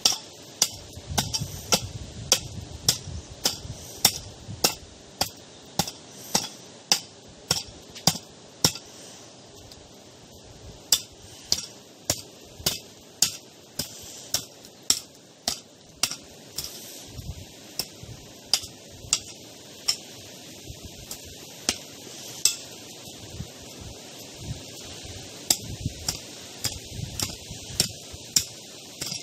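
A hand hoe striking dry, stony soil in steady strokes, about one and a half to two a second, each a sharp clink of the metal blade on grit and stones. The strokes pause briefly a few times.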